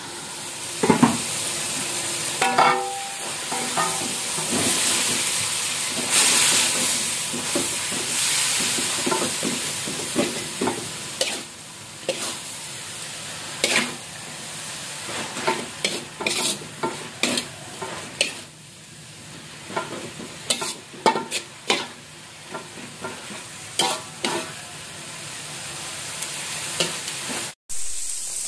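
Water spinach sizzling in a hot aluminium wok while a metal spatula stirs and scrapes through it, with many sharp clinks of the spatula against the wok. A couple of ringing metal clangs sound in the first few seconds.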